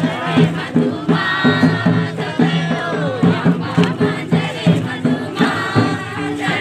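A group of voices sings a Nagpuri folk song together over a steady drum beat.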